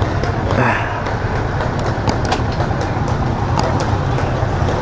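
Small Kawasaki motorcycle engine idling steadily, a fast even pulsing low hum.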